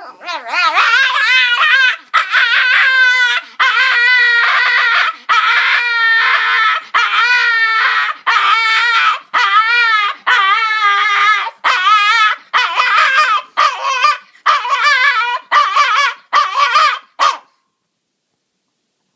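Dog screaming while begging for food: a loud string of about fifteen wavering, high-pitched cries with a yodel-like wobble. The cries are long at first and come shorter and quicker toward the end, then stop about seventeen seconds in.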